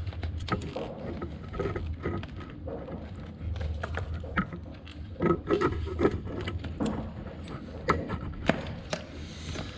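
Hands working at a motorcycle's fuel-injection wiring and intake parts: irregular small clicks, taps and rattles of plastic connectors, clips and tools, over a low steady hum.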